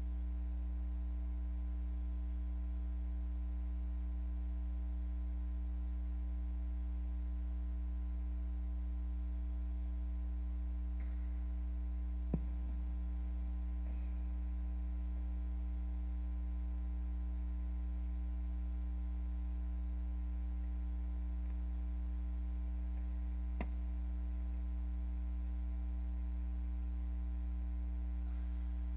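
Steady electrical mains hum with a buzzing ladder of overtones, unchanging throughout, broken only by two faint single clicks, one near the middle and one about two-thirds of the way through.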